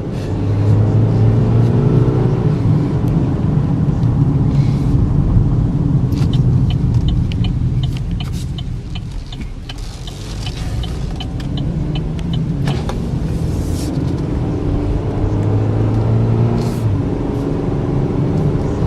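Chevy Equinox's 2.4-litre four-cylinder engine and road rumble heard from inside the cabin as the car drives. The engine note eases off and then builds again near the middle.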